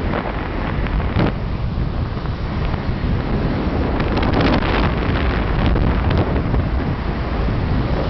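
Wind buffeting the microphone over the steady road rumble of a moving car, with a few brief louder gusts about four to five seconds in.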